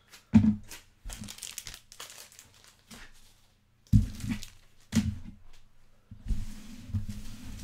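Off-camera handling noise: packaging crinkling and rustling, with several dull thumps, the loudest near the start.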